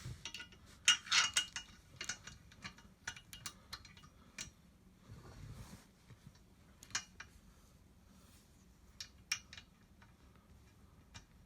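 Small metal parts clinking and clicking as hardware is handled while fitting parts of a hoverboard kart frame. There is a quick cluster of clinks about a second in, then scattered single clicks.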